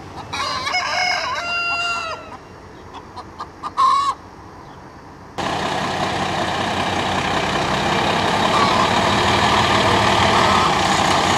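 A rooster crows once, a call of about two seconds, followed by a few short clucks. About five seconds in, the sound cuts abruptly to the steady running of a heavy semi-truck's diesel engine.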